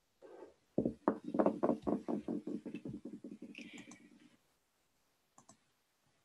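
A quick run of knocks, about five a second, growing softer and dying away over about three seconds.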